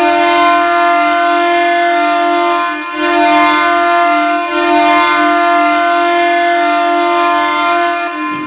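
Ottawa Senators arena goal horn blowing a loud, steady low chord, dipping briefly about three seconds in and again at four and a half seconds, then cutting off near the end: the signal of a home-team goal.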